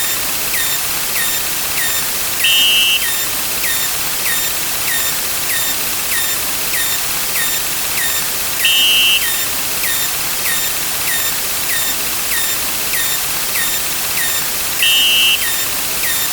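Synthetic sound-effect track: a steady loud hiss with short ticks about twice a second, and a brief two-tone beep three times, about six seconds apart.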